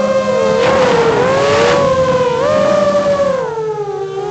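FPV quadcopter's electric motors and propellers whining, several tones rising and falling together as the throttle changes. Rushing air noise comes in over the first half. The pitch drops about three and a half seconds in as the throttle eases off.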